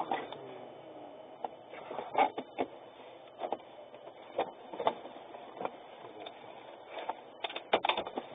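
A string of irregular sharp knocks and clicks inside a vehicle cab, several close together near the end.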